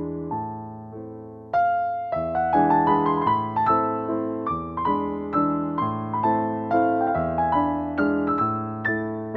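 Background piano music: a gentle melody of struck notes, each fading away, that grows louder and fuller about a second and a half in.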